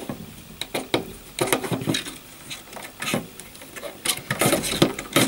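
Rattan core cane stakes rustling and scraping against each other and the woven basket side as they are pushed and threaded into a basket border, with irregular clicks and short scrapes.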